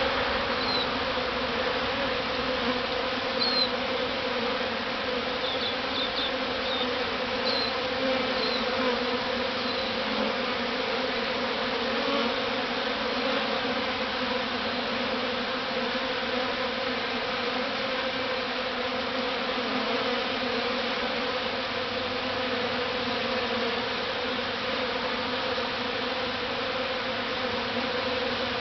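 A large honeybee swarm buzzing steadily at close range as it crowds into a hive box, a dense continuous hum with a low, even pitch. A few faint high chirps sound in the first ten seconds.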